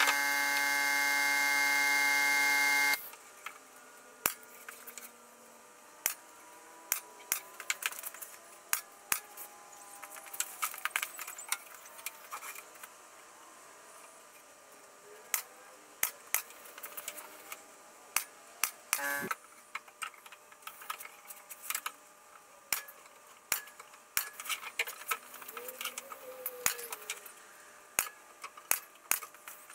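A motor on a handheld power tool runs with a steady high whine and cuts off abruptly about three seconds in. Scattered sharp clicks and knocks of tool and timber handling follow.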